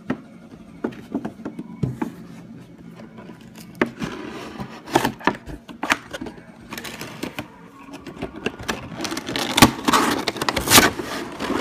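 Cardboard collectible-figure box being opened and its clear plastic blister tray handled and slid out: scattered clicks and rustles, with plastic crackling that grows busier and is loudest near the end.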